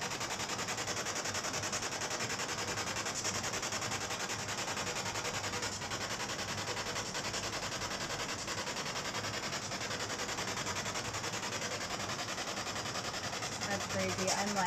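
Steady radio static with a fast, even flutter from a ghost-hunting spirit box. It is left running for the spirits to answer through.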